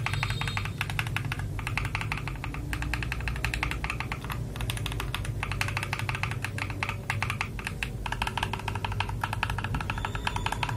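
Fast typing on an FL Esports MK870 mechanical keyboard fitted with Akko Silver switches: a rapid, unbroken run of crisp keystrokes with a few brief pauses.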